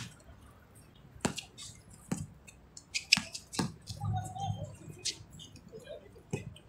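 Scattered sharp slaps and knocks from a basketball game in play: the ball bouncing on the hard outdoor court and players' shoes on the surface, at irregular intervals. Faint voices can be heard about two-thirds of the way in.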